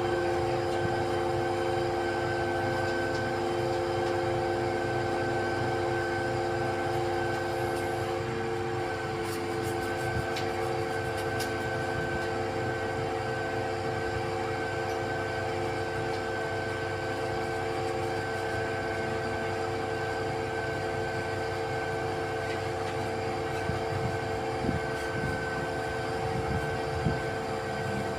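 Truck-mounted XCMG concrete pump running steadily, its engine and hydraulics giving a constant rumble with a steady whine of several pitches. A couple of short knocks come near the end.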